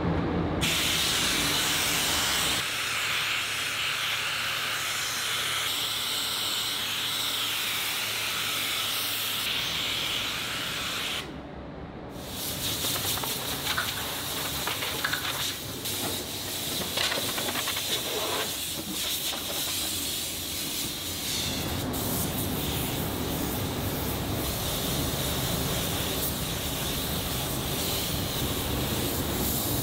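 Compressed-air paint spray gun hissing as it sprays paint. It stops briefly about eleven seconds in, then starts again.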